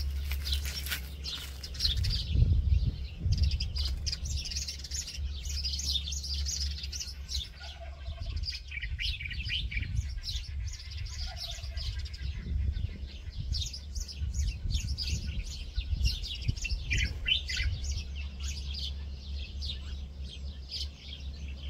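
Small birds chirping, short high calls coming thick and fast, over a steady low rumble.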